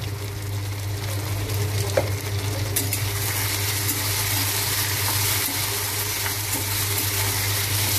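Cubed potatoes and sliced onions sizzling in oil in a steel kadai while a spatula stirs and scrapes them around the pan, with a short knock of the spatula on the pan about two seconds in. A steady low hum runs underneath.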